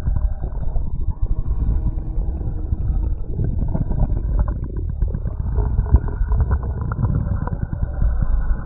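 Body sounds heard through a stethoscope: a dense, low, continuous sound crossed by many small clicks and crackles.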